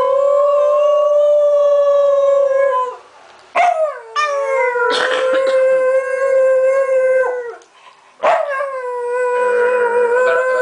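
Small pet dog howling: three long howls in a row, each held at a steady pitch for about three to four seconds, with short breaks between them.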